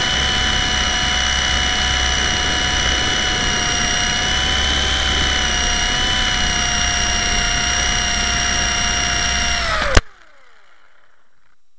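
Blade 120 SR micro RC helicopter's electric motor and rotors whining steadily, heard close up from its onboard camera. About ten seconds in there is a click and the whine cuts out, a faint whine falling in pitch as the rotors slow.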